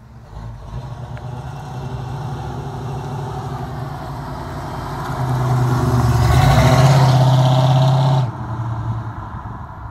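1972 Ford Mustang Mach 1's 351 Cleveland V8 running through dual Flowmaster Super 44 mufflers as the car drives past. The low exhaust rumble grows louder as it approaches, is loudest as it passes under throttle, and drops off sharply about eight seconds in.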